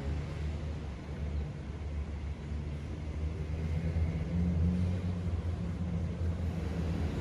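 Low, steady rumble of a vehicle engine, growing slightly louder about four seconds in.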